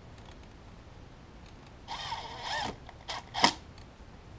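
Cordless impact driver driving screws back into an alternator case: one run of under a second about two seconds in, then two quick trigger pulls, the last the loudest.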